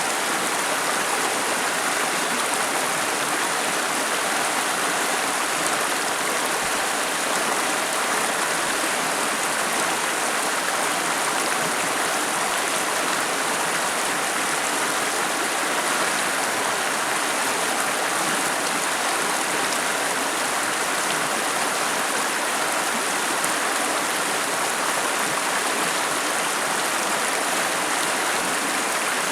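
River water flowing, a steady, even rush of running water that never changes.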